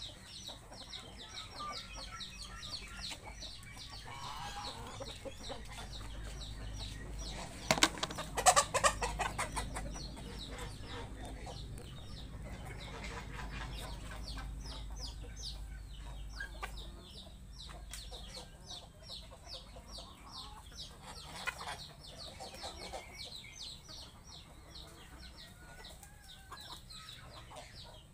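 Flock of domestic chickens clucking as they feed, with a brief loud flurry of noise about eight seconds in.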